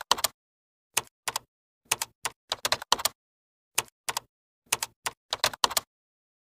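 Typing sound effect: irregular keystroke clicks, singly and in quick little runs, which stop about six seconds in.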